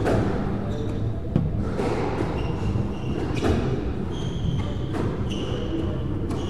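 Squash ball thuds ringing in the enclosed court every second or two, with short high squeaks of court shoes on the wooden floor.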